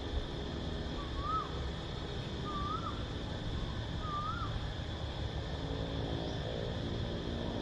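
Cicadas droning steadily at a high pitch, over a low wind rumble. A bird gives three short whistled calls, each rising then dropping, about a second and a half apart. A low hum comes in near the end.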